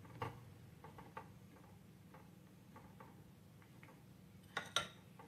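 Metal spoons ticking and clinking against a steel kadai of boiled milk as it is stirred: a scatter of light ticks, with two louder clinks near the end.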